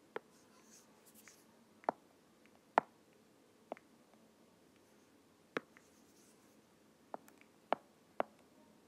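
Faint, sharp clicks of a stylus tapping a tablet's writing surface, about eight at irregular intervals over a light hiss.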